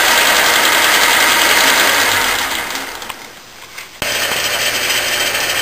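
Logan 10-inch metal lathe running with its change gears exposed, a steady mechanical whir and rattle. About two and a half seconds in the sound dies away, and about four seconds in it starts again abruptly, a little quieter, with the lathe now running slowly in back gear.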